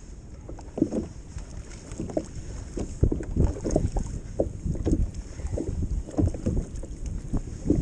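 Wind buffeting the microphone and sea water lapping against a kayak hull, with irregular low thumps several times a second over a steady hiss.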